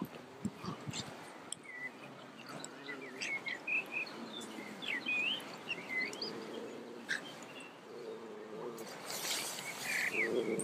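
Songbirds chirping in short rising and falling phrases through the middle, with low dog growls in the second half, growing near the end. A brief rush of noise comes about nine seconds in.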